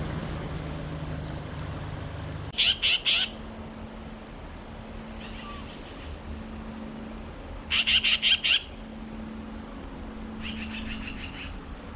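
Black-billed magpie giving harsh, rapid chattering calls in short series: two loud runs of four or five notes, about 3 and 8 seconds in, and two fainter ones. For the first couple of seconds the creek's rushing water is heard, then it cuts off.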